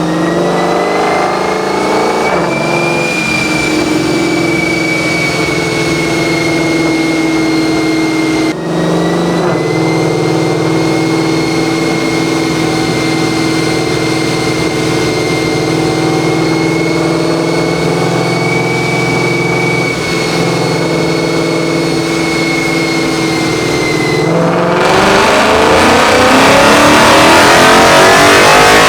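A 2017 Ford Mustang GT's 5.0 V8 running on a chassis dyno at a steady speed, with a short dip about eight seconds in. About twenty-five seconds in it goes to full throttle and gets louder, its pitch climbing: a wide-open-throttle dyno pull on the 93-octane tune to measure power.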